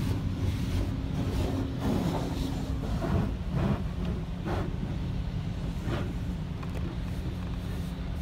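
High-pressure water jets from an automatic car-wash arch spraying onto the car's windshield and body, heard from inside the cabin over a steady low hum of the wash machinery. The spray comes in several brief louder surges as the jets sweep across the glass.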